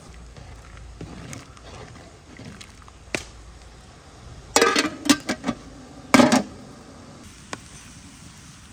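A metal ladle knocking and clinking against cookware: a quick run of sharp knocks about halfway through, and another couple of knocks a second later.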